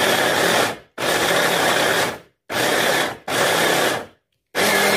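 Electric food chopper running in short pulses of about a second, switched on and off five times, its blades chopping carrots in the bowl.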